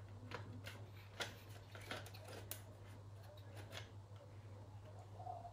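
Faint clicks and scrapes of hard plastic as the sections of a Dyson DC54 cyclone unit, freshly unscrewed, are worked and pulled apart by hand.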